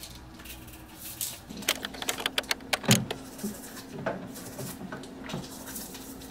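Irregular small clicks and knocks, with one louder knock about three seconds in, over a faint steady hum that starts about a second and a half in.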